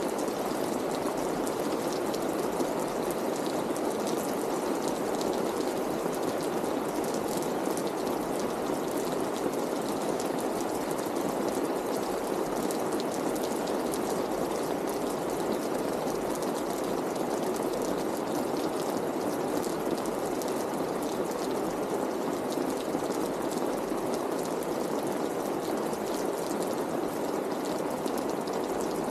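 Rain falling steadily on a wet street: an even rushing hiss with the fine tick of individual drops.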